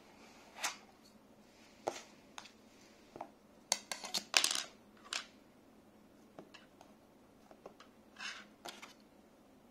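Scattered light clicks and taps of small hard plastic pieces, Lego bricks used as modelling tools, being picked up and set down on a tabletop. The sharpest clicks bunch together about four seconds in, and a brief rub comes near the end.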